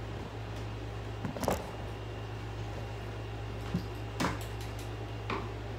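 A handful of short clicks and taps from a screwdriver working on a hair dryer's plastic housing during disassembly, over a steady low hum.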